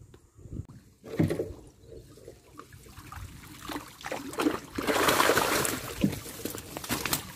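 Water pouring and dripping off a wire-mesh fish trap as it is hauled up out of the water, swelling to a loud rush about five seconds in. A few knocks sound along the way.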